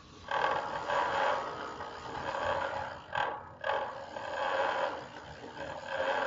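Loud rushing roar of water in the Zamzam well shaft, coming in long surges that break off briefly about three seconds in and again near the end.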